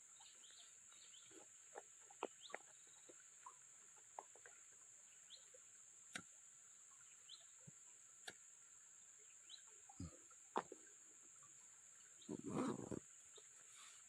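Near silence: a faint steady high-pitched insect drone, with scattered small clicks and a short rustle near the end.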